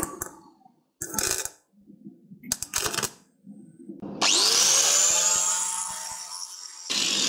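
A couple of short metallic clatters, then an electric angle grinder spins up sharply about four seconds in and runs for a few seconds, dressing the worn, built-up pad-seat surfaces of a brake caliper bracket.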